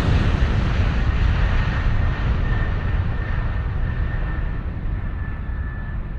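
Jet aircraft sound effect: a broad rumble that slowly dies away as it passes off, its hiss fading first, with a faint steady whine coming in about halfway through.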